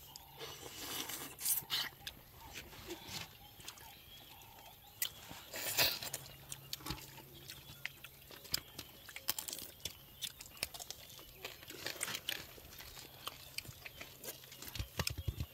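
Scattered small clicks and wet smacks of people eating stiff porridge by hand: fingers pinching it from a pot and dipping it into bowls of broth, an irregular run of soft ticks.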